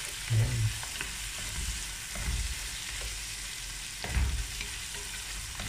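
Beef chunks and bone-in ribs sizzling in hot oil and their own rendered fat in a nonstick pot: a steady frying hiss, with a few louder strokes as a wooden spatula stirs and scrapes the meat.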